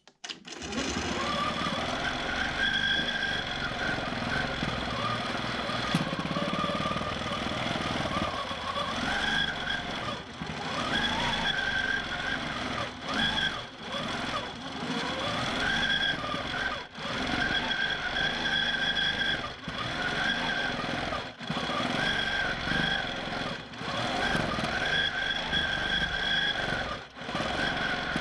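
Q'nique 19 longarm quilting machine stitching in stitch-regulated mode, its motor whine rising and falling with the speed of the head and dropping out briefly every second or two as the head pauses.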